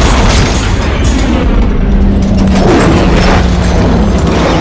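Film-trailer sound mix: loud booming hits over a heavy rumble and music, with a steady low tone in the middle.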